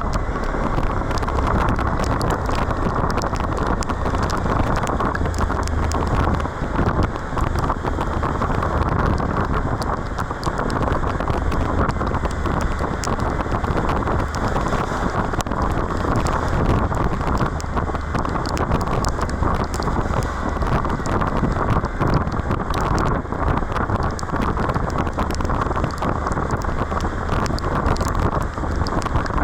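Wind rushing over the microphone of a moving Suzuki V-Strom 1050XT motorcycle in rain. Many small raindrop ticks strike throughout, over a steady low hum.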